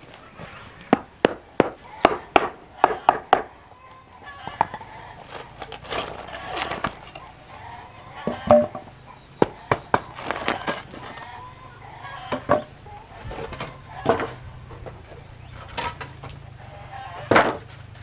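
A hammer knocking on a wooden formwork strip set between two cast concrete slabs, working it loose: a quick run of about nine sharp strikes, then scattered knocks and scraping, with one loud strike near the end.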